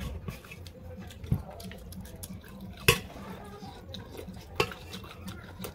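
Cooked snail shells clinking against each other and a ceramic plate as they are picked out by hand: a few sharp clicks, the loudest about three seconds in.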